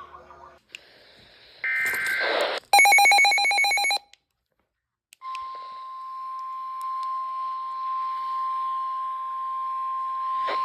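Weather radio emergency alert signal: a harsh screeching burst of data tones and then a rapid pulsing beep, a short silence, and from about halfway in the steady single-pitch warning alarm tone over radio hiss, the tone that comes before a severe weather warning is read.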